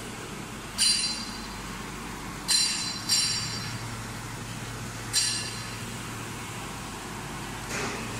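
Silica sand processing machinery running with a steady hum, broken by four sharp, ringing metallic clinks at uneven intervals.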